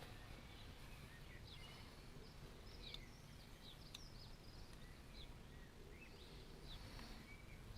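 Faint birdsong: many short, quick chirps from small birds, over a low steady background rumble.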